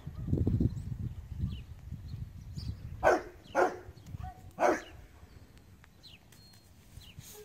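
A dog barking three times, about three, three and a half and four and a half seconds in, over a low rumble in the first couple of seconds.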